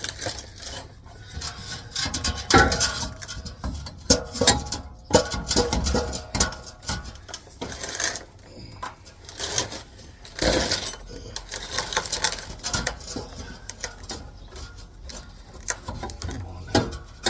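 Steel exhaust tailpipe being worked up over a pickup's rear axle, clanking and knocking irregularly against the chassis, some knocks with a short metallic ring.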